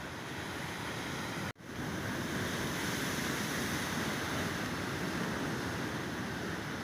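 Sea waves breaking and washing on the shore in a steady surf. The sound cuts out for an instant about a second and a half in, then carries on slightly louder.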